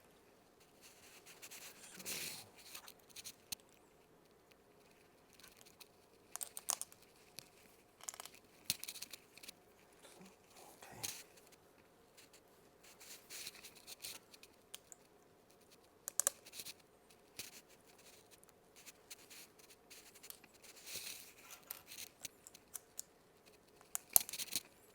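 Hands handling a 3D-printer build plate and its clips: irregular clicks, taps and scraping, with the loudest moments about two seconds in and again near the end.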